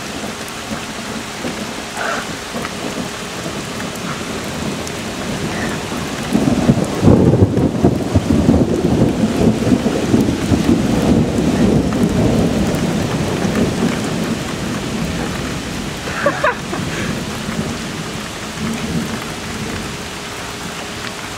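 Thunderstorm: heavy rain falls steadily. About six seconds in, a long roll of thunder comes in, loudest for a couple of seconds, then fades over about eight seconds. It is the thunder from a lightning strike seen just before.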